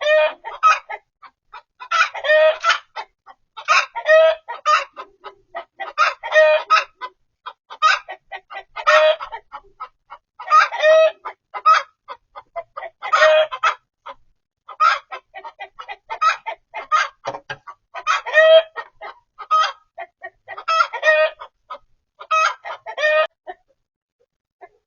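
A chicken clucking loudly and repeatedly, in bursts of calls about every two seconds.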